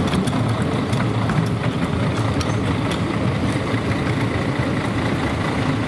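Diesel engine of a MAN fire truck running at low revs as the truck rolls slowly forward, a steady deep rumble with a few light clicks over it.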